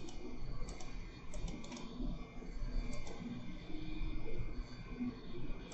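Computer mouse clicking: a handful of short, light clicks, some in quick pairs, mostly in the first three seconds, then a pause and one more near the end.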